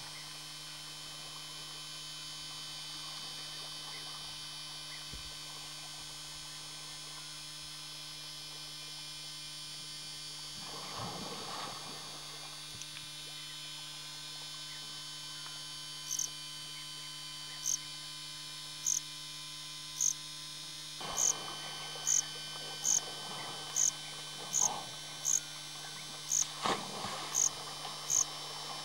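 Steady electrical hum over a faint outdoor background. About halfway through, a short high chirp starts repeating roughly once a second, then a little faster; it is the loudest sound.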